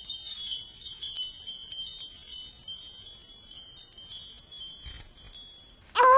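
High, tinkling wind chimes, many bright notes ringing over one another and slowly fading. A baby starts to cry right at the end.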